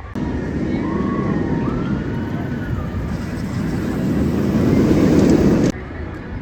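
Steel roller coaster train on a test run, its wheels running along the track as a noise that grows louder to a peak about five seconds in, then cuts off abruptly.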